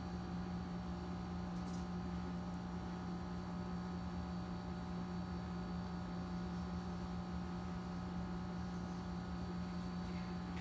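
Steady electrical hum over a light hiss: room tone.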